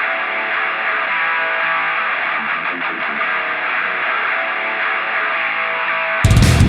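Rock music with electric guitar, thin and without bass at first. Near the end the full band comes in suddenly, much louder and heavier, with distorted guitar.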